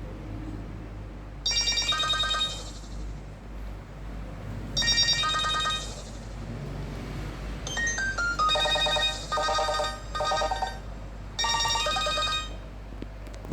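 Nokia 3110 classic mobile phone playing a Nokia 6100 ringtone through its loudspeaker. The tune comes in short phrases of quick, high electronic notes, broken by pauses of a second or so, with a stepwise falling run of notes about eight seconds in.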